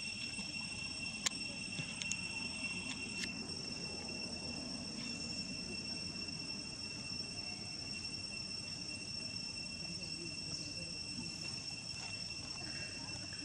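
Insects droning steadily outdoors: one unbroken high-pitched tone with a fainter, higher overtone. A few sharp clicks stand out in the first few seconds.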